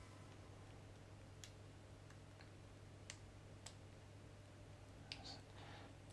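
A handful of faint, separate clicks from a steel hook pick working the spool pins inside a Master Lock 570 padlock, over a low steady hum. The picker is still searching for the binding order.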